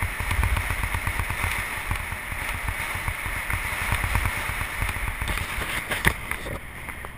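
Wind buffeting the microphone of a camera moving along an asphalt road: a dense, uneven low rumble over a steady hiss, with a few sharp clicks about six seconds in.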